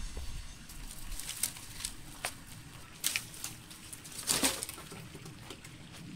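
Dry sticks and twigs clattering and snapping as a bundle of firewood is gathered and pushed into a clay tandoor oven: a string of sharp cracks, the loudest a crunchy rustle a little past the middle.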